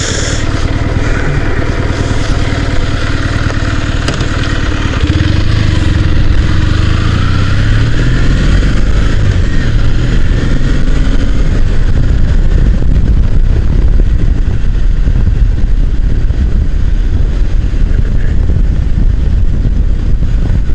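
Motorcycle pulling away and accelerating, its engine note rising in pitch through a couple of gear changes, then settling into steady cruising with road and wind noise.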